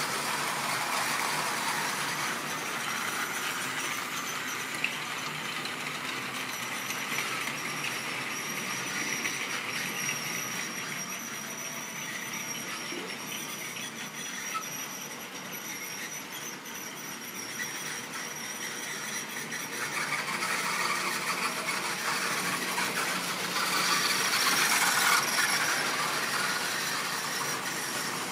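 OO gauge model train hauling tank wagons around the layout: a continuous rattle of small wheels on the rails. It is louder as the train passes close at the start, fainter in the middle, and loudest again from about 20 to 26 seconds in as it comes back round.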